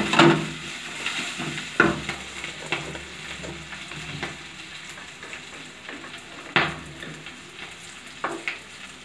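Onions, green chillies and ground spices sizzling in mustard oil in a frying pan while being stirred with a wooden spatula: a steady hiss with a few scrapes and knocks of the spatula against the pan, the loudest about six and a half seconds in.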